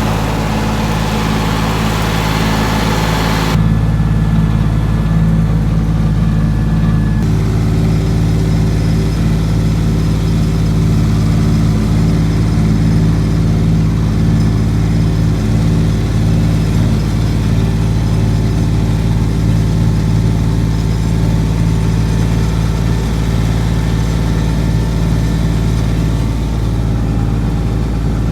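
John Deere tractor's diesel engine running steadily, heard close up. A rushing noise lies over it for the first three or four seconds.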